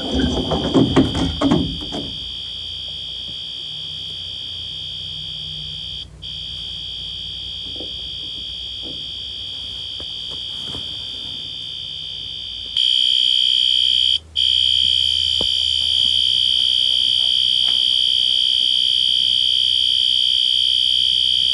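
Fire alarm horn's steady high-pitched tone, played on a tablet and heard muffled through a closed closet door. About 13 seconds in it turns suddenly much louder and brighter, and it breaks off for a split second twice.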